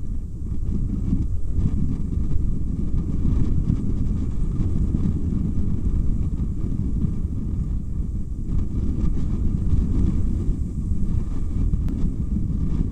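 Strong wind buffeting the nest-box camera's microphone: a steady low rumble that rises and falls in gusts.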